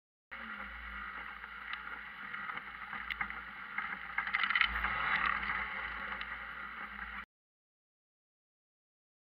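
Off-road buggy driving through forest, heard from a camera mounted on its bonnet: steady engine and driving noise with a low rumble and scattered clicks and knocks, swelling in the middle and cutting off abruptly about seven seconds in.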